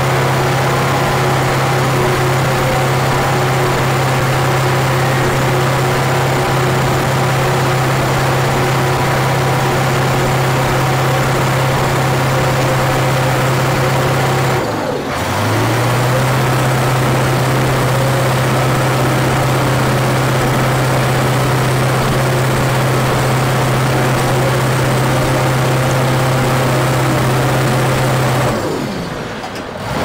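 International Harvester TD20E bulldozer's DVT800 V8 diesel running steadily. Its note dips briefly about halfway, then climbs back, and drops again near the end.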